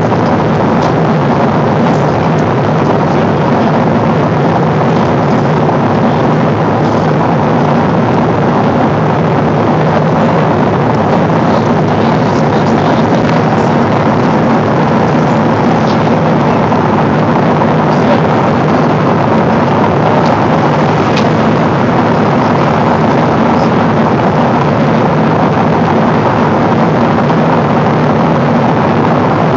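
Steady cabin noise of a Boeing 777 airliner in cruise: an even rush of airflow and engine drone with a faint low hum underneath.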